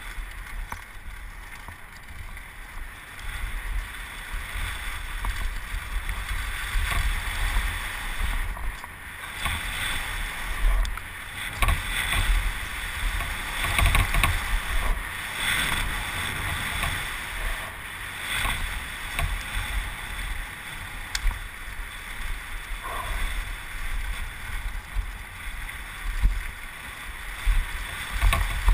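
Wind rushing over a helmet-mounted camera and mountain-bike tyres rolling fast on hard-packed dirt, a continuous rumble with frequent knocks and rattles from bumps, berms and jump landings, louder surges several times.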